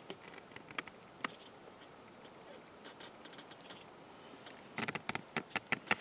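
Faint scattered clicks and ticks, then a quick run of sharper clicks near the end.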